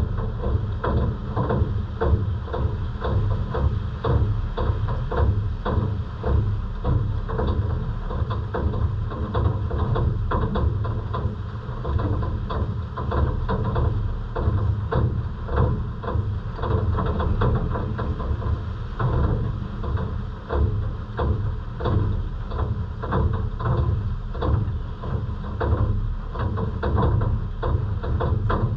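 Heavy rain falling: many irregular drops tapping close by over a steady low rumble.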